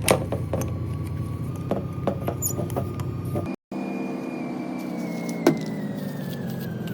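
A motor running with a steady low hum and scattered clicks. After a brief break about halfway through, a whine slowly falls in pitch as the motor winds down.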